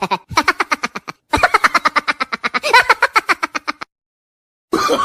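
Laughing sound effect: a rapid staccato cackle of quick pitched pulses in two runs with a short break, stopping about four seconds in, with another laugh starting near the end.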